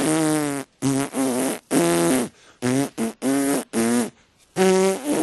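A tune made with the mouth in a string of short, buzzy, tooting notes that step up and down in pitch like a melody, a rough cartoon-voice show of 'professional whistling'.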